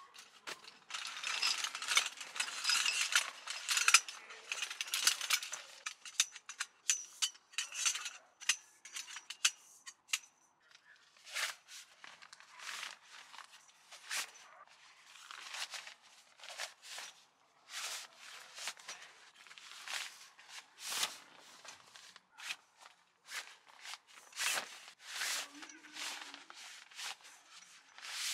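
Fabric rustling and metal clicking as a folding camp cot is unpacked: dense rustling of the carry bag and cot fabric for the first several seconds, then scattered clicks and knocks of its aluminium poles and metal leg frames being handled.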